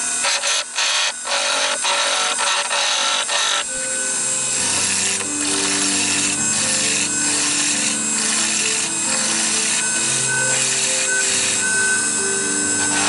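A turning tool cutting a spinning olive-wood pen blank on a King KWL-813VS mini wood lathe running at its top speed: a loud hiss of shaving wood, broken into short strokes at first, then steady. Background music comes in about four seconds in.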